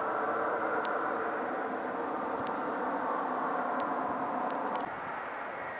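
Twin-engine jet airliner at takeoff thrust, heard from behind: a loud, steady engine noise as it rolls down the runway. The noise drops off suddenly about five seconds in.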